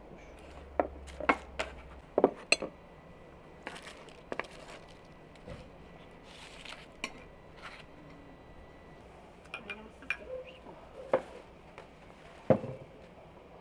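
Dishes and cutlery clinking and knocking as pizza rolls are served from a metal baking tray onto plates: irregular sharp clinks, loudest about a second in, about two seconds in and near the end.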